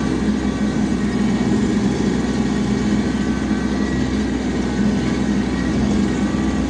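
Tractor engine running steadily under load, driving a bush hog rotary mower, with an even drone and no change in speed.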